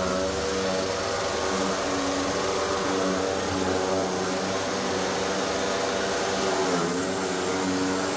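Electric chaff cutter, its motor-driven blades running steadily and chopping hand-fed green grass and straw, a loud humming whine over a rushing hiss. About seven seconds in the pitch dips briefly and recovers as the cutter takes load.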